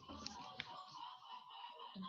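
Faint background noise coming through a Zoom call's audio, with a couple of soft clicks and indistinct distant sounds.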